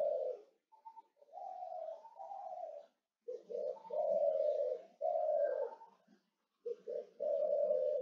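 A dove cooing in repeated phrases of short and longer coos, with brief pauses between phrases about three and six seconds in.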